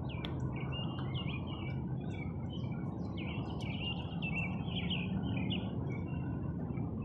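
Small birds chirping in many short, rapid calls, over a steady low background noise.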